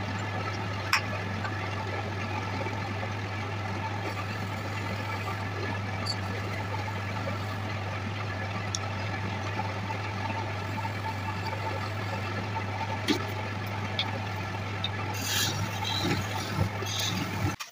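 Wood lathe's electric motor running steadily with a constant low hum as it spins a finished wooden goblet, with a few light clicks and scrapes; the hum cuts off suddenly at the very end.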